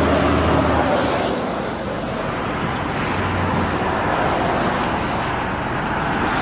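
Steady motor-vehicle noise: a diesel engine running with road noise, with a low hum that fades out about a second in and briefly returns around the middle.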